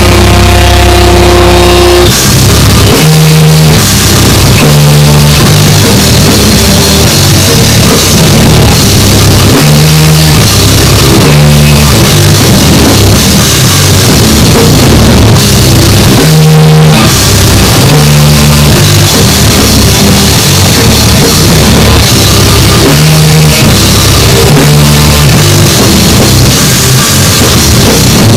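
A rock band playing very loud: electric guitar and drum kit together. A held chord rings for about the first two seconds, then the drums come in under a steady, repeating riff.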